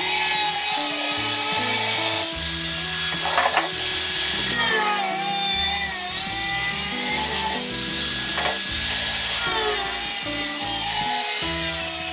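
Angle grinder with a cutting disc cutting through the thin sheet steel of a square metal can, the disc grinding and whining against the metal. Background music with a bass line plays along with it.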